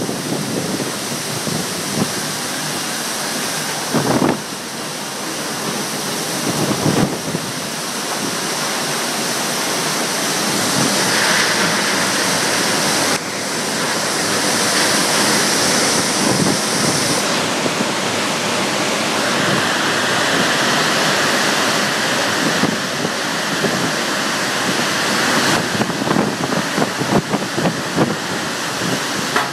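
Tornado-strength storm winds with driving rain, a loud, continuous rush that surges and eases in gusts, with gusts buffeting the microphone. These are the winds of an EF0 tornado in a tropical storm, which the person filming puts at 60 to 70 mph.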